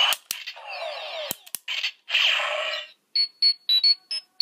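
Power Rangers Super Megaforce Legendary Morpher toy playing its electronic sound effects through its small speaker with a Ranger key inserted. Sweeping synth tones come first, then a quick run of short high beeps near the end.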